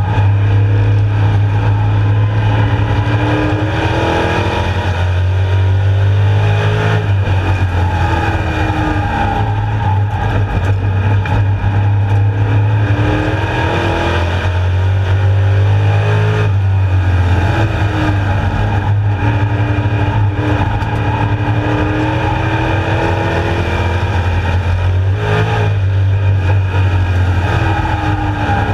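Street stock race car engine running hard at racing speed, heard from inside the cockpit, its pitch rising and falling as the car accelerates and lifts, with a brief dip about every nine seconds. Road and wind noise run underneath.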